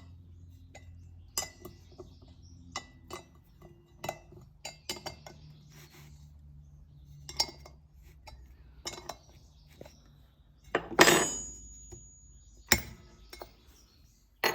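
Metal hand tools and sprocket bolts clinking and clicking as the bolts are snugged up by hand, in scattered irregular taps. The loudest clank comes about 11 seconds in, with a brief metallic ring after it.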